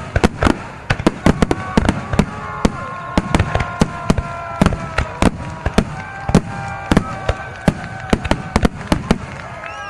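Rapid-fire barrage of aerial firework shells bursting in a wide star mine finale: dense, irregular sharp bangs, several a second, with a few steady high tones running underneath.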